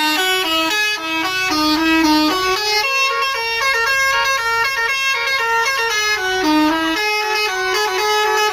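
Bus 'telolet' basuri air horn playing a tune: a quick run of bright notes stepping up and down in pitch, some held for about half a second.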